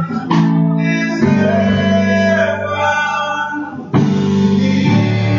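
Live gospel worship music: a church band with keyboard and drums backing singers, holding long sustained chords.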